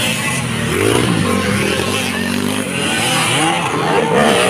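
Several dirt bike engines revving as the bikes ride past close by, their pitch rising and falling with the throttle.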